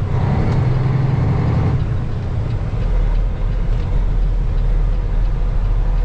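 Diesel engine of a semi truck heard from inside the cab as the truck pulls a heavy trailer. The engine runs with a steady low drone; its note changes about two seconds in and settles into a deeper rumble.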